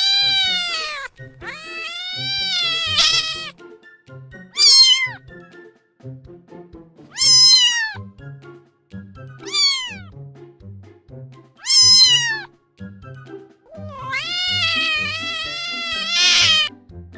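A cat meowing about seven times, some calls short with a falling pitch and a few drawn out for two to three seconds, over soft background music.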